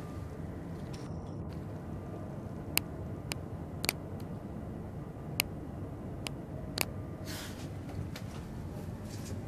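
Steady low rumble inside a moving cable-car gondola, with about half a dozen sharp clicks or taps scattered through it and a brief rustle about three-quarters of the way in.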